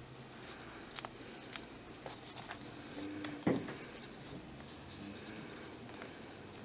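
Faint handling sounds of fingers working and blending soft polymer clay, with scattered small clicks and one louder soft knock about three and a half seconds in.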